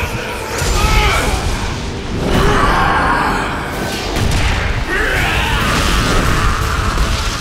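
Cartoon battle soundtrack: dramatic music with booming and crashing sound effects.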